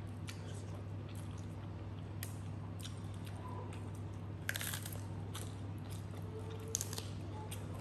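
Close-up eating sounds: chewing, with scattered small clicks and crisp crunches. A louder crackle about halfway through fits raw cabbage leaves being broken apart by hand. A steady low hum runs underneath.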